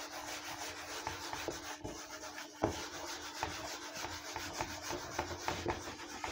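A hand-held eraser rubbing back and forth across a whiteboard, a continuous scrubbing made of many quick short strokes, with one sharper knock about two and a half seconds in.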